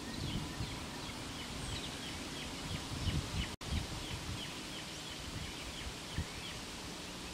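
Birds chirping in short repeated notes over a low wind rumble on the microphone, with a split-second cut-out in the sound a little past halfway.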